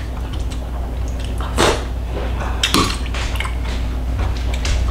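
Spoon clinking and scraping against bowls while someone eats: a few separate clinks, the strongest about one and a half seconds in and a cluster near three seconds, over a low steady hum.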